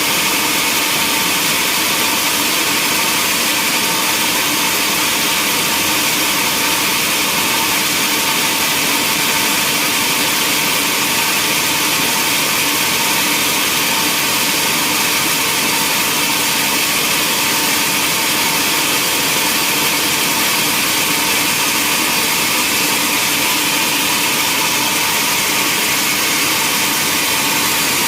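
Sawmill machinery running steadily, a dense, even noise weighted toward the high end with no breaks or changes.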